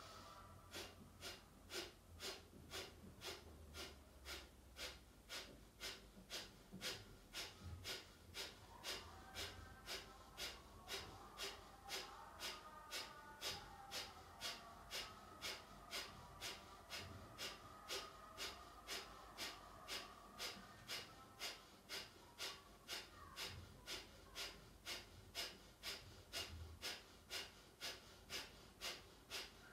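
Kapalabhati pranayama breathing: short, forceful exhalations puffed out through the nose, about two a second in a steady rhythm, each driven by a snap of the abdominal muscles.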